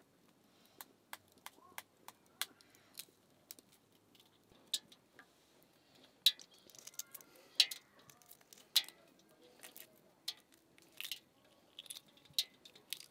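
A string of irregular sharp clicks and light taps at a low level, a few louder ones in the middle ringing briefly.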